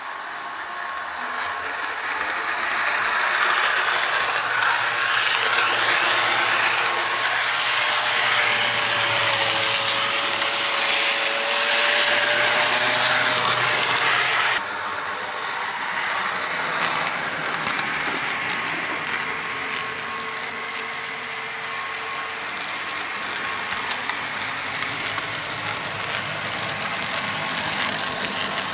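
HO-scale Bowser C-636 model diesel locomotive running on the track, new with little run time, its motor and truck gears giving a steady whirring, ratchety mechanical noise. It gets louder over the first few seconds as the locomotive approaches, drops sharply about halfway through, and then runs on steadily.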